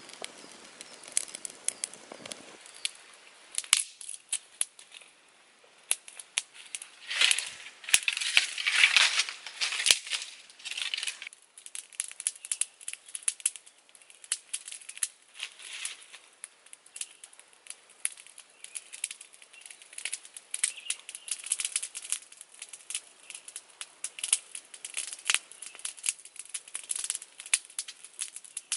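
Small open fire of dry twigs and leaves crackling with scattered sharp pops, mixed with the rustle of handling, and a few seconds of louder rustling about seven seconds in.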